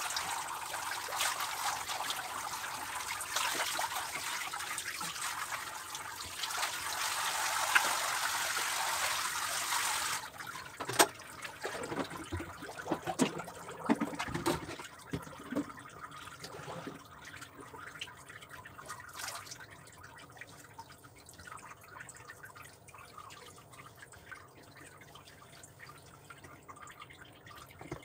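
Handheld shower head spraying water over a dog's wet coat, a steady rush that cuts off suddenly about ten seconds in. After that, water dripping and trickling, with a few sharp knocks and splashes.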